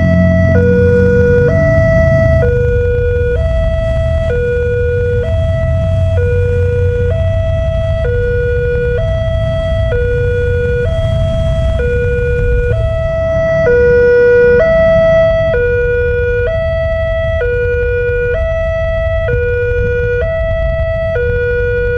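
Railway level-crossing warning alarm sounding its electronic two-tone hi-lo signal, switching between two pitches about once a second and never pausing, as the barriers come down to warn of an approaching train. A low traffic rumble runs underneath.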